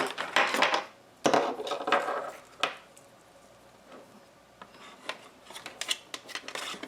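Handling noise from cables being plugged into a smart-home hub: two stretches of rustling in the first two seconds, a sharp click a little later, then a string of light clicks and taps.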